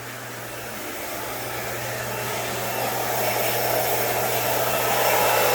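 Pressure washer running: a steady rushing noise over a low hum, growing gradually louder.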